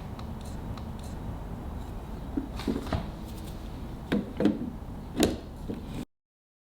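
A few light clunks and knocks of espresso gear being handled, over the low steady hum of a running milk foam maker. The sound cuts to dead silence about six seconds in.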